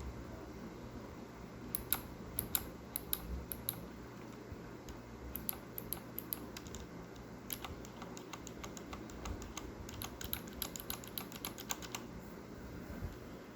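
Keys of a Corsair K65 mechanical keyboard with Cherry MX Red switches being pressed, each giving a sharp click, in irregular clusters with a fast run of presses near the end. The owner says the clicking is so bad it sounds like a blue switch, though red switches are linear and should not click.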